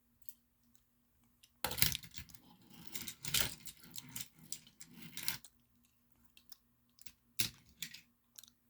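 Hot Wheels diecast toy cars being handled and rummaged in their bag, clinking and rattling against each other for a few seconds. A few single clicks follow near the end.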